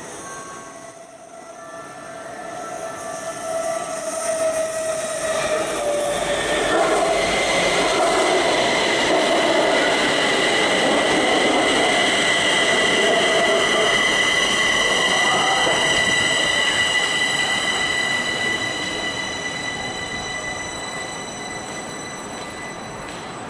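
Kaohsiung MRT Red Line metro train pulling into an elevated station: its running noise builds over several seconds, is loudest as the cars pass close by with a steady high whine, then fades as the train slows near the end.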